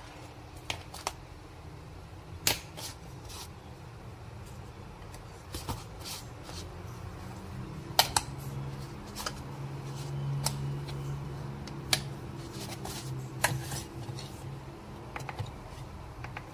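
Scattered clicks and knocks of plastic and glass parts of a portable blender cup being handled and set down during unboxing, over a low steady hum.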